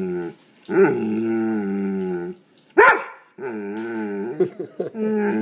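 A dog making long, drawn-out grumbling growl-howls, each about a second and a half long and wavering in pitch, with one short sharp bark about halfway through. These are the odd noises of protest the dog makes at an air pump it hates.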